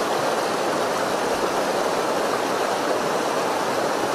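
Steady rush of a clear mountain river flowing over rocks.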